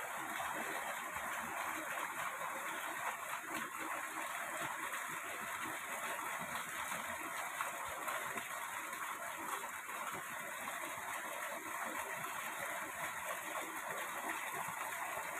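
Small shallow stream running over stones: a steady, even rush of flowing water.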